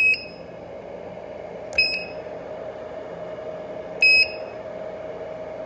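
Foxsur battery charger's mode button beeping three times as it is tapped to cycle through charging modes: short, high electronic beeps, one at the start, one about two seconds in and one about four seconds in. A faint steady hum runs underneath.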